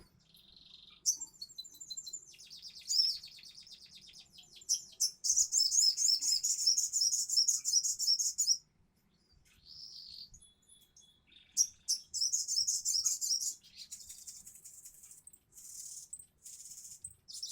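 A ruby-cheeked sunbird (sogok ontong) singing in rapid, high-pitched chattering trills. The song comes in bursts of a few seconds broken by short pauses, the fast stuttering 'konslet' delivery of a bird in full song.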